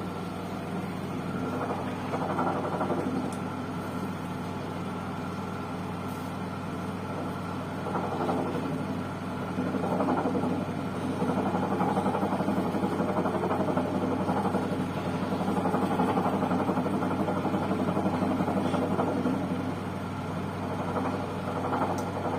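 Whirlpool washing machine in its spin cycle, running with a steady hum and a rumbling noise that grows louder about ten seconds in and eases near the end. The noise during the spin is the fault being shown.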